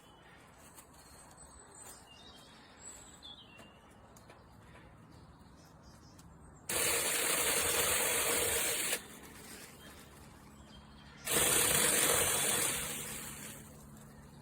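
Cordless mini chainsaw run in two bursts of about two seconds each, each starting abruptly, the first beginning about halfway through; the second tails off as it stops.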